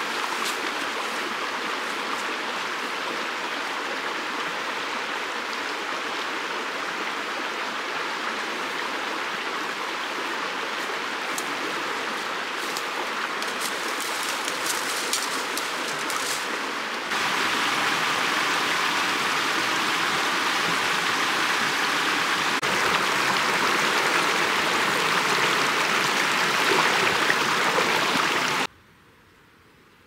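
Small mountain stream running over stones: a steady rush of water. About seventeen seconds in it changes to a louder, brighter rush, then drops away near the end to a faint trickle.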